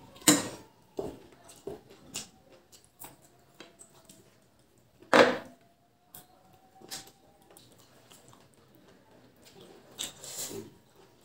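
Close-up eating sounds of mutton curry and rice eaten by hand: loud wet bites about a third of a second in and about five seconds in, with softer chewing clicks between. Near the end comes a squelch of curry-soaked rice being mixed by hand.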